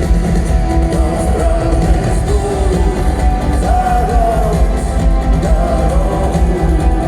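Rock band playing live and loud, with strong bass and drums under a sung melody line.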